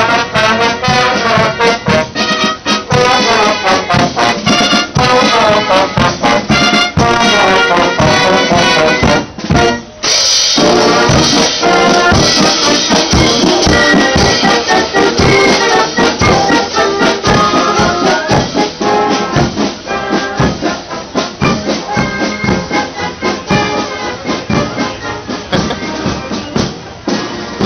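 Marching band playing, brass and flutes or fifes with clarinets over a steady drum beat. The music grows somewhat fainter over the last several seconds as the band moves past.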